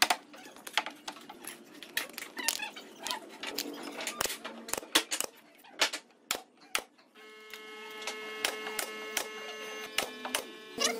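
Pneumatic nail gun firing into pine in quick, irregular sharp cracks, mixed with knocks of wood being fitted by hand. About seven seconds in, a steady pitched hum sets in.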